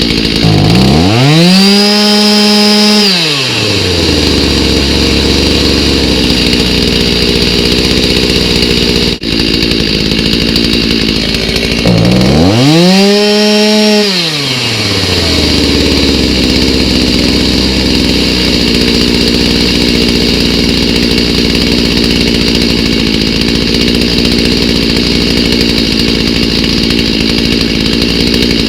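Stihl MS290 two-stroke chainsaw, fitted with a new aftermarket carburetor, idling steadily and revved twice to high speed, each rev held a second or two before dropping back to idle.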